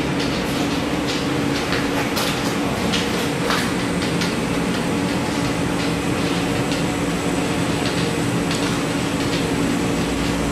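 A steady mechanical hum with a few held tones, and scattered light clicks and taps over it.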